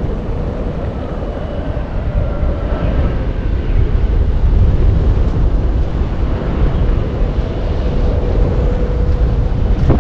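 Wind buffeting an action camera's microphone: a loud, rough, low rumble that grows a little louder about halfway through, with a faint steady tone underneath.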